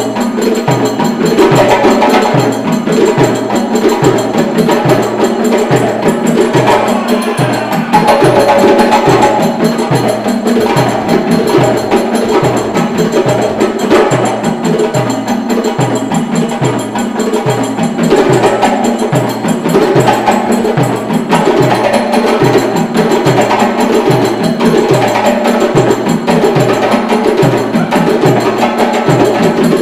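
Djembe ensemble with stick-played dunun bass drums playing a rhythm from Ivory Coast together: a steady repeating low drum pattern under dense djembe slaps and tones.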